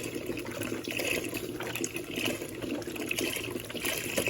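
Chicken stock being poured into a cooking pot, a steady liquid pour with splashing.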